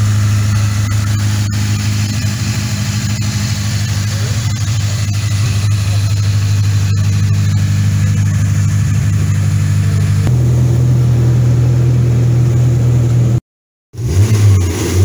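Honda F20 four-cylinder, swapped into a Mazda B2200 pickup, running at a steady idle; its note steps down slightly about two-thirds of the way in. Near the end the sound cuts out briefly, and when it comes back the engine is revving up.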